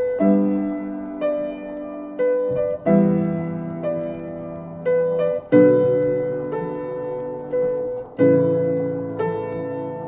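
Slow solo piano music: a note struck about once a second and left to fade, over low chords that change every two to three seconds.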